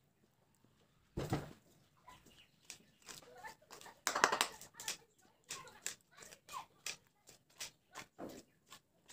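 A spoon stirring chili paste and water in a small bowl, with soft, irregular clicks and scrapes against the bowl's side and a louder burst of stirring noise about four seconds in.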